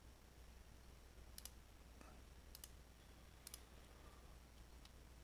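Faint computer mouse button clicks, each a quick double click, three times about a second apart and a fainter one near the end, over a low steady hum.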